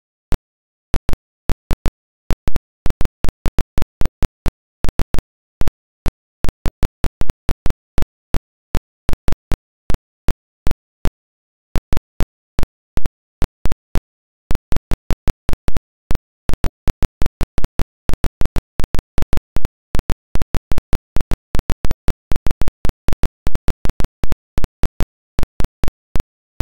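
Irregular sharp clicks, roughly two to four a second, with dead silence between them.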